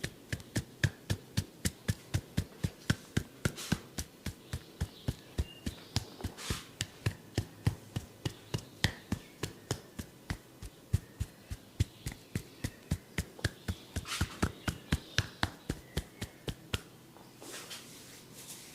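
Barber's hands striking the head and neck in a percussive massage: quick, even slaps about three a second that stop near the end.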